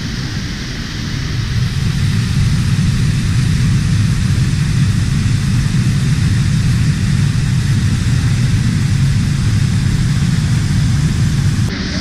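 Waterfall pouring over rock ledges into a pool: a steady rushing noise with a strong low rumble underneath.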